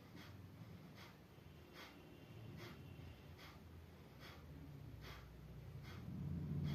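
A person breathing hard in a quick, even rhythm, with short sharp breaths about every 0.8 seconds. A low hum grows louder near the end.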